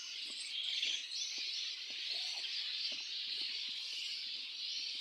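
A large flying fox colony chattering and screeching in the trees, a continuous dense mass of high-pitched calls.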